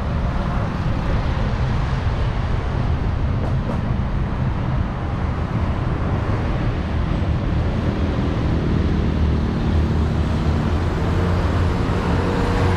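Steady rumble of road traffic on a busy city boulevard, with vehicle engines running throughout.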